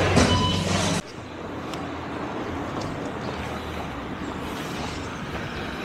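Supermarket background with a steady hum, cut off abruptly about a second in by steady outdoor street ambience, a low even wash of distant traffic.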